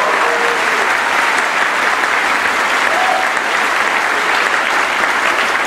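Theatre audience applauding steadily after a song.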